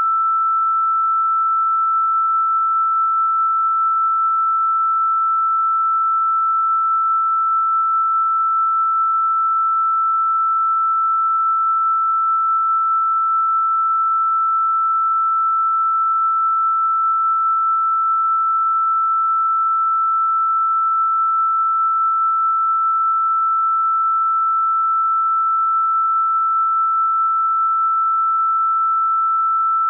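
A single pure electronic sine tone, fairly high in pitch, held completely steady at one pitch and level with nothing else sounding. It is a sustained 'healing frequency' tone.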